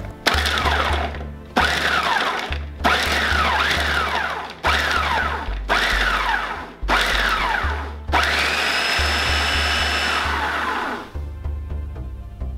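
Food processor chopping onion pieces, pulsed in six short bursts of about a second each, each falling in pitch, then run continuously for about three seconds before it stops.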